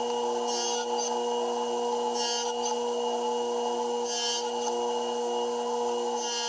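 Table saw running steadily while box-joint slots are cut in a wooden board, with four short cutting hisses, about one every two seconds, as the board is passed through the blade.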